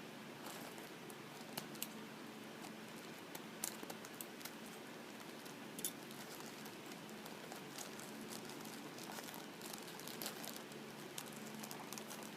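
Faint crinkling of a small packaging bag being handled and pulled at while someone struggles to open it, with scattered small clicks and rustles.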